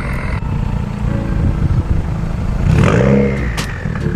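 2020 Subaru WRX's turbocharged flat-four, fitted with a Tomei Ti exhaust, idling with a low rumble and a brief rev about three seconds in.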